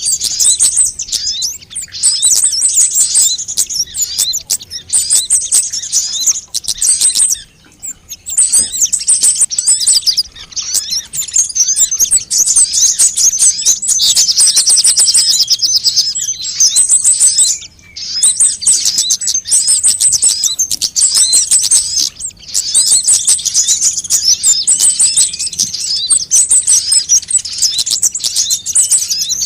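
Sunbird lure recording: rapid, high-pitched chirping trills that run almost without a break, pausing only briefly a few times.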